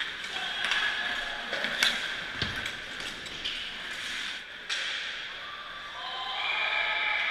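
Ice hockey play at the net: skates scraping the ice under sharp clacks of sticks and puck, several in the first few seconds, with a heavier thud about two and a half seconds in.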